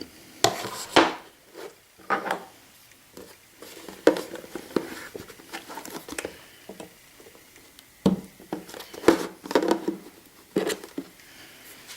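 A chisel cutting a moulded rib off a plastic bucket lid: irregular sharp knocks and scrapes of the blade against the plastic, with short pauses between.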